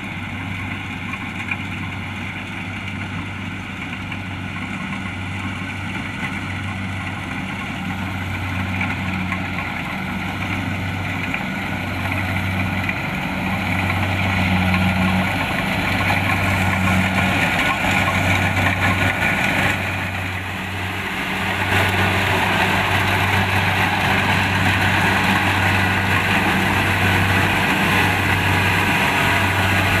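Kubota DC-70 Plus combine harvester's diesel engine and machinery running steadily. The noise grows louder about halfway through, dips briefly about two-thirds of the way in, then comes back louder.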